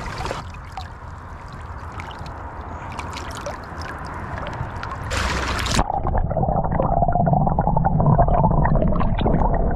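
Shallow creek water splashing and trickling around hands holding a golden trout at the surface. A short splash comes just before halfway, and then the sound turns muffled and gurgling as the microphone goes underwater.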